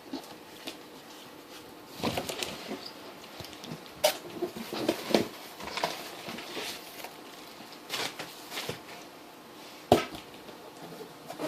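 Handling noises from unboxing: scattered knocks and rustling of packaging, with the sharpest knocks about 4 and 10 seconds in.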